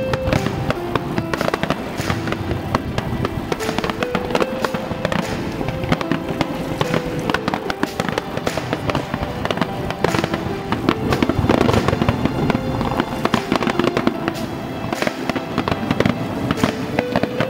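Aerial fireworks shells bursting and crackling in quick succession, with music playing underneath.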